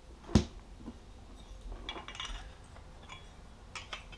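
Handling noise from a backup camera and its mounting bracket being fitted together by hand: one sharp knock about a third of a second in, then light clicks and clinks as the parts are turned and pressed together.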